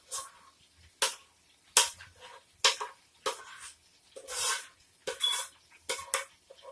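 A utensil scraping and knocking against a pot and pan in short, uneven strokes, with one longer scrape about four seconds in, as melted cheese is spooned over macaroni noodles.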